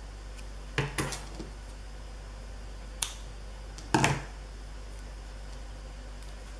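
Metal-bladed craft scissors handled and set down on a tabletop: a short clatter about a second in, a single sharp click near three seconds, and a louder clatter near four seconds.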